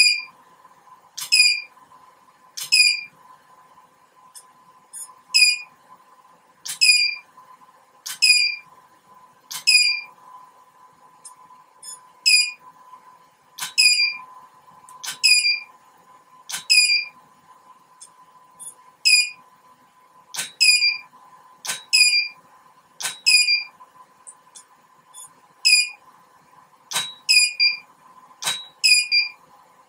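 Profoto studio flash heads, a B1 500 AirTTL and a D1 500 Air, firing over and over, about every one and a half seconds. Each firing is a sharp pop followed at once by a short high beep as the head signals it has recycled and is ready. A faint steady high hum runs underneath.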